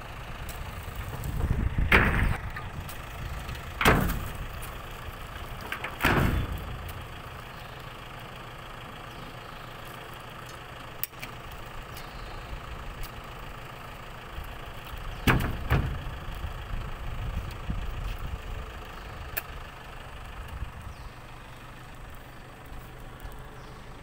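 Steady low mechanical rumble, broken by four loud thumps about 2, 4, 6 and 15 seconds in.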